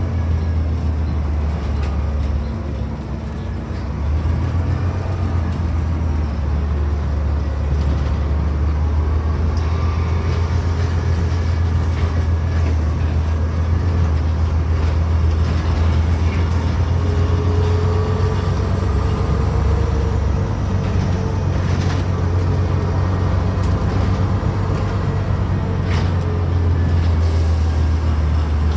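The diesel engine of bus 1823 (HF54 KXV) running, heard from inside the passenger saloon as a steady low drone. The drone dips briefly a few seconds in, and a faint rising whine comes through in the middle. Occasional light rattles and knocks sound over it.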